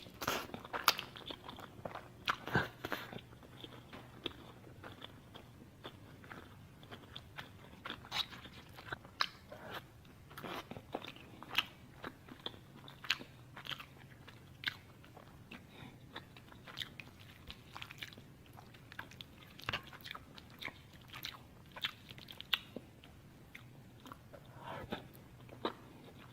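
Close-up sounds of a person eating crunchy food: irregular sharp crunches and crackles of biting and chewing, a few every second, over a faint steady low hum.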